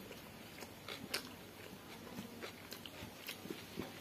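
Close-up chewing and biting sounds of a person eating by hand, a series of soft irregular clicks and crunches.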